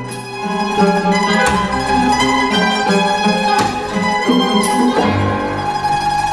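Background music: plucked qanun notes over held bowed-string notes from a small ensemble, with a few sharp plucked accents.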